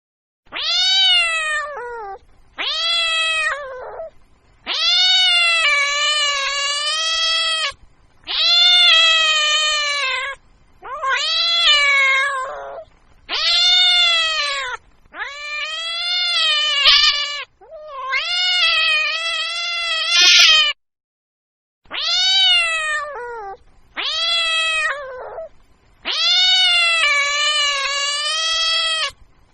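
Domestic cat meowing over and over, about eleven long, drawn-out meows of one to three seconds each, with short gaps between them. Each meow rises and then falls in pitch.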